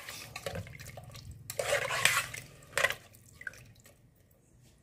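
Hands mixing seasoned pieces of pigeon meat inside a pressure-cooker pot, making a few short wet, scraping bursts in the first three seconds before it goes quiet.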